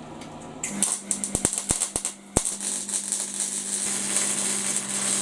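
Welding arc striking with a run of sharp crackles about a second in, then a steady crackling hiss over a low electrical hum.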